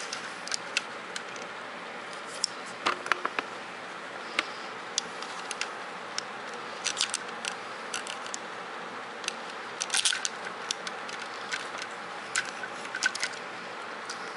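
Hard plastic parts of a Robots in Disguise Optimus Prime transforming toy clicking and rattling as they are turned and snapped into place by hand: irregular sharp clicks, bunched into short flurries a few seconds apart, over a steady low hiss.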